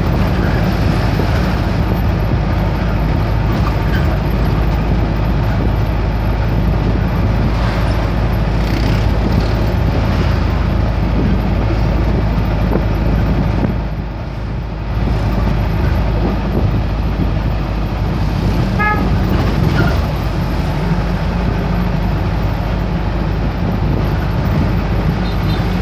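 Steady engine hum and road noise heard from inside a moving vehicle's cab, easing briefly about halfway through. A short horn toot sounds about two-thirds of the way through.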